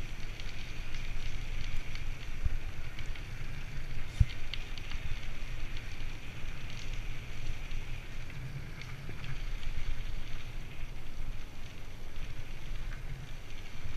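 Wind rumble on a bike-mounted camera's microphone and bicycle tyres rolling over a crushed-gravel trail, with a few small clicks and rattles from the bike.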